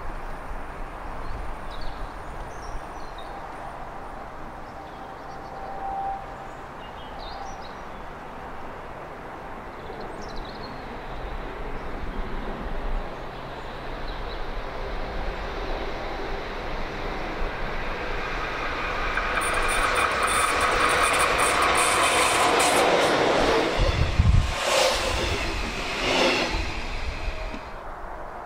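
Electric locomotive approaching and running past close by: a rushing rail noise that grows steadily louder, with wheels clattering over the rail joints as it passes, then cuts off suddenly near the end.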